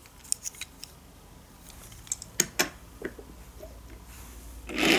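Small wooden toy engines being handled and set down on a hardwood floor: a few light clicks and taps, then a short rustle near the end.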